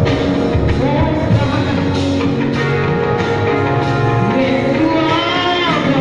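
Live church band with drums playing while a woman sings into a microphone over it, her voice sliding up and down between notes.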